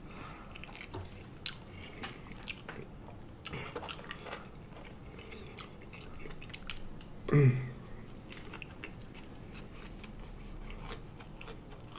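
Close-miked chewing and lip-smacking of a fried-chicken sandwich (a Chick-fil-A spicy deluxe with bacon), with many small wet mouth clicks. A short voiced sound comes from the eater about seven seconds in.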